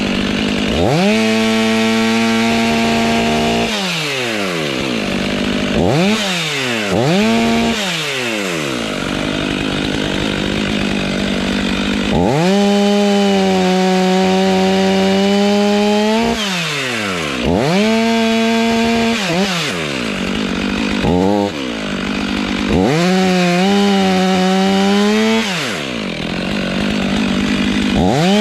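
Two-stroke chainsaw cutting oak, revved up to full throttle and held for a second or up to about four seconds at a time, then let back down, about seven times over, with a longer idle stretch around the middle.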